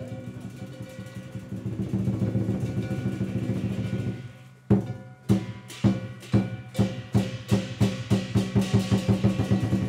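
Chinese lion dance percussion: drum and clashing cymbals over a steady ringing. After a brief lull about four seconds in, sharp strikes start slowly and speed up to about three or four a second.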